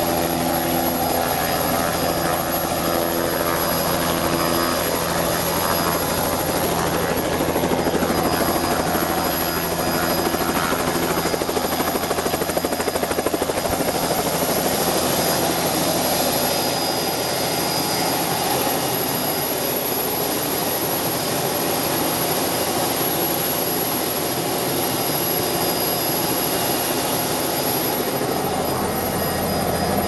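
Turbine helicopter idling on the pad with its main rotor turning: a steady running sound with a thin high whine over it, unchanging throughout.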